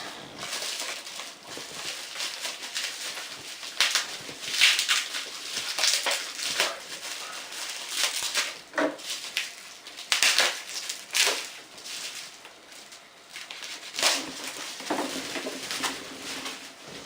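Box packaging being handled as a radio-controlled truck is unpacked: irregular rustling, crinkling and scraping, with several louder crackles scattered through.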